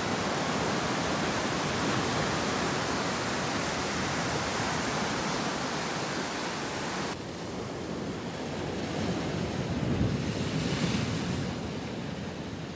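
Ocean surf breaking and washing over lava rocks, with wind on the microphone. About seven seconds in the hiss drops abruptly to a duller wash, which swells again near the end.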